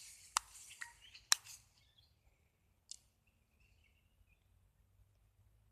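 A few sharp clicks and taps of hands handling the remote-control car while a bird feather is picked out of its axle, the loudest about a second and a half in. After that, faint bird chirps.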